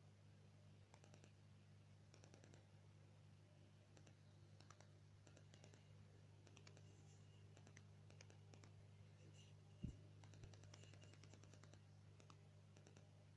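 Near silence: a faint steady low hum with scattered faint clicks, and one soft knock about ten seconds in.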